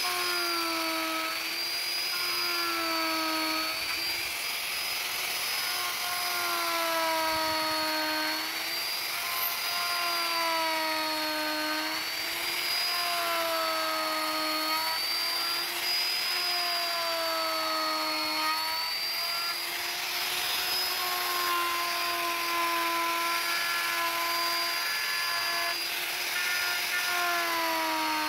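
Electric wood router cutting a carved relief into wood: a steady motor whine over a hiss of cutting, its pitch sagging and recovering every second or two.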